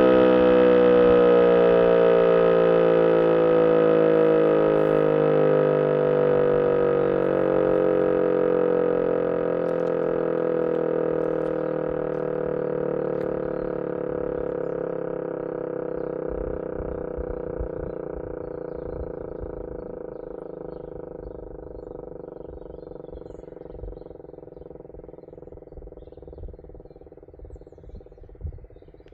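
A DS977 electric motor siren winding down: its wail falls slowly and steadily in pitch and fades away over about half a minute as the rotor spins down.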